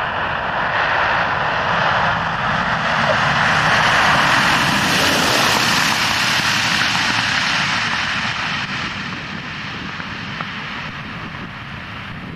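Douglas DC-6's four Pratt & Whitney R-2800 radial piston engines on a landing pass, their propeller and engine noise swelling as the plane passes close about four to six seconds in, then fading as it rolls away down the runway.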